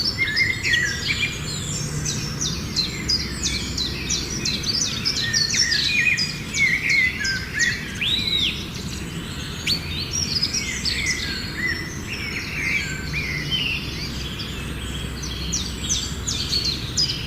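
Several songbirds chirping and calling all at once, a dense stream of short, quick, overlapping notes with the odd rising and falling whistle, over a steady low background rumble.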